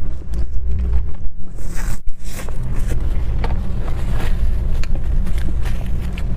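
Close-miked eating sounds: chewing and wet mouth clicks over a steady low rumble.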